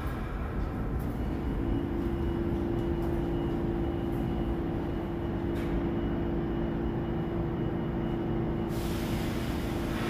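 New York City subway train in the station: a steady low rumble with a constant hum that sets in about a second and a half in, and a few light clicks.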